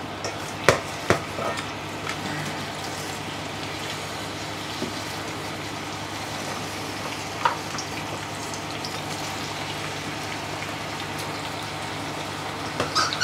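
Sliced vegetables sizzling in hot oil in a frying pan, a steady frying hiss, with two sharp knocks about a second in.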